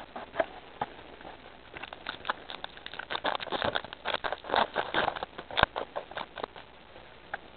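Crinkling and rustling of Pokémon trading-card packs and cards being handled: a dense run of small crackles from about two seconds in that dies away near six and a half seconds.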